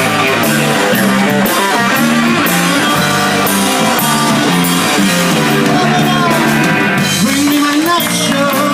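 Live blues band playing: electric guitar, bass guitar and drum kit in a steady groove, with regular cymbal hits. A bent, rising note comes in near the end.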